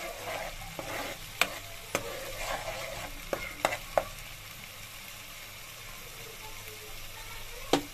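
Onion and garlic paste frying in hot oil in a metal pan with a steady sizzle. A steel spoon stirs it, clinking against the pan several times in the first half and once near the end.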